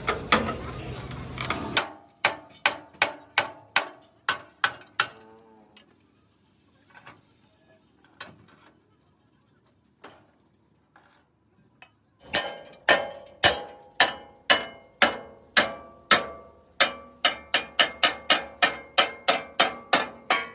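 Hammer blows on steel, struck about three times a second with a ringing, metallic tone. A run of blows is followed by a pause of several seconds with only a few light knocks, then a longer steady run of strikes starts about twelve seconds in.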